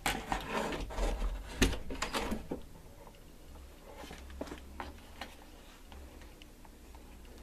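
Handling noise of a hand-held tool being worked against a door and its brass doorknob: clattering and knocking in the first two and a half seconds, with one sharp knock about a second and a half in, then a few faint clicks.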